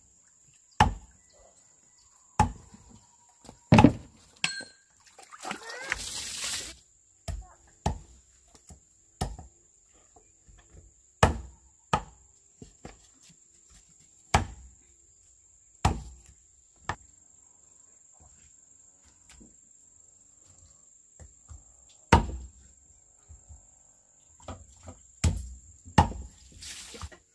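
Sharp chopping knocks from a knife striking a wooden board, single blows at uneven gaps of one to two seconds. A brief rushing noise comes about six seconds in.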